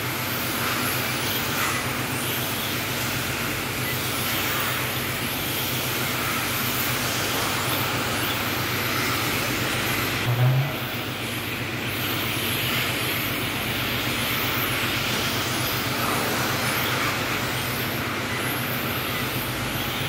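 Electric 1/10-scale RC touring cars racing, their brushless motors giving high whines that rise and fall as the cars accelerate, brake and pass, over a steady low hum. A brief low thump about ten and a half seconds in.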